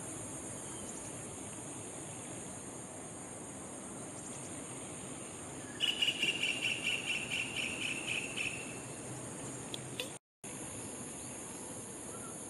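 Steady high-pitched drone of insects. About six seconds in, a louder, rapid pulsing trill joins for about two and a half seconds.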